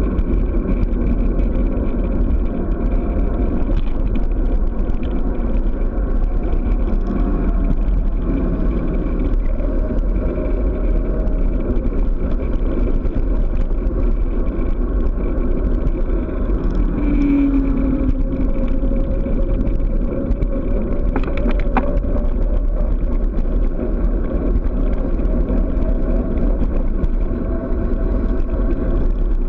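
Steady wind rushing over a bicycle-mounted camera's microphone on a fast downhill run, mixed with the tyre rolling on asphalt.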